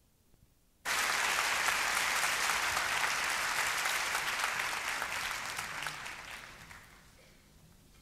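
Concert audience applauding, heard from a cassette tape of an FM live broadcast: the applause cuts in abruptly about a second in out of faint tape hiss and dies away over the last few seconds.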